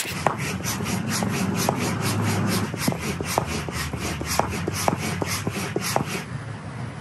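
Hand pump inflating an inflatable stand-up paddle board: a rhythmic whoosh of air with each stroke, about four a second, with light clicks along the way.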